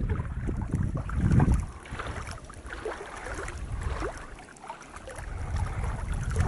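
Wind buffeting the microphone in loud low gusts, easing after about a second and a half and picking up again near the end, over lake water lapping with many small clicks and splashes.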